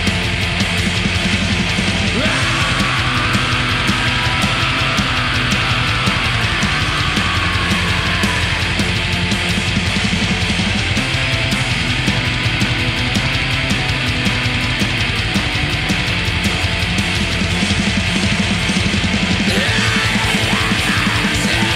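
Black metal music: distorted guitars over fast, dense drumming in a loud wall of sound.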